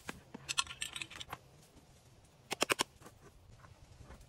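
Small sharp clicks and taps from metal alligator clips and wires being handled and clipped onto terminals, with a quick run of about five loud clicks a little past halfway.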